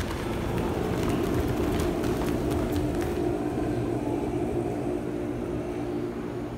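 Dung chen, long Tibetan telescopic horns, sounding a steady low drone of several held tones that eases off a little near the end. A few faint high clicks come through in the first half.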